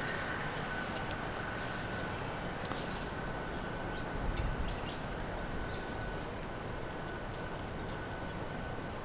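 Outdoor woodland ambience: a steady low rumble and a faint steady high tone, with scattered short, high bird chirps throughout. A brief low bump comes about four and a half seconds in.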